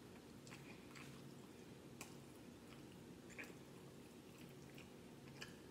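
Very faint eating sounds: quiet chewing and scattered small clicks as food is picked apart by hand on a plate, over a steady low hum.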